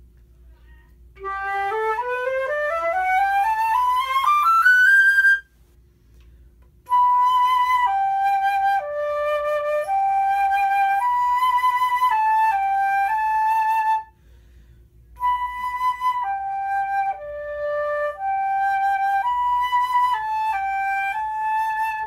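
Powell 14K gold flute with a 14K gold P-cut headjoint being played solo: a rising run over about two octaves, then a short slow melody of held notes played twice, with a brief pause between.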